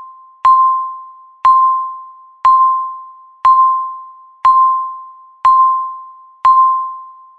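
Countdown timer beeps: a bell-like electronic tone struck once a second, seven times, each ringing and fading until the next. The last one cuts off suddenly.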